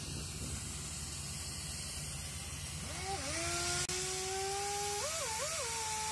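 Wind on the microphone, then from about three seconds in a whine from a drilling rig's motor, its pitch creeping up, wavering twice and then holding steady.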